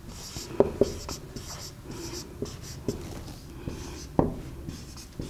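Marker writing on a whiteboard: a series of short strokes and taps, the loudest about four seconds in.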